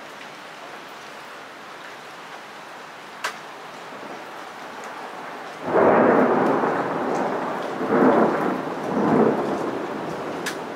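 Thunder from a lightning strike during a night storm: steady rain hiss, then a little over halfway through a sudden loud crack of thunder that rolls on with two more surges before slowly dying down.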